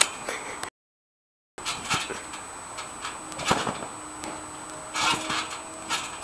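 Boxer puppy bouncing on a trampoline: irregular thumps as it lands on the mat, about eight in five seconds. The sound cuts out entirely for about a second near the start.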